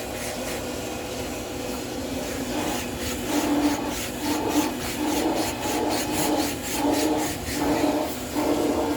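A PVC cable cutter, a cord saw with a handle at each end, drawn back and forth through cured 3M 5200 marine sealant in the joint between a cutless bearing bracket and the hull, gradually cutting the bond. The rasping and sawing settles, about three seconds in, into a steady rhythm of roughly a stroke and a half per second, each stroke with a buzzing squeal.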